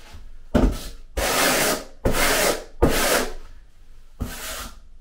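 Steel trowel scraping thinset mortar across a foam backer board in about five strokes, one brief and the rest longer. The flat side of the trowel is burning in, or keying, a thin coat into the substrate so that the tile will bond.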